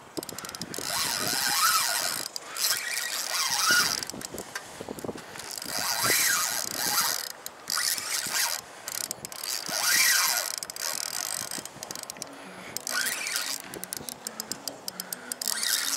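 Fishing reel being cranked in repeated bursts of a second or so, its gears clicking and whirring, each burst rising and then falling in pitch as the handle speeds up and slows.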